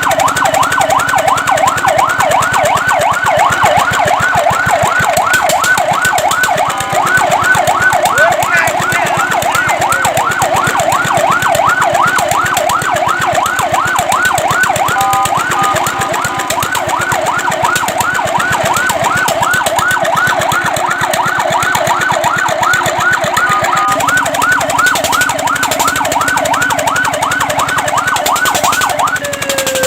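Fire truck siren sounding in a fast yelp: rapid rising and falling wails, about three or four a second. A few times it breaks briefly into a steady held tone before the yelp resumes.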